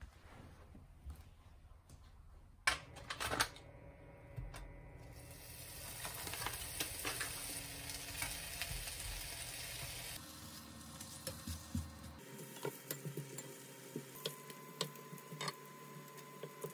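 Bacon strips sizzling in a nonstick frying pan, with tongs clicking and tapping against the pan as the strips are laid in and moved about. A few sharp clicks come about three seconds in, before the sizzle starts.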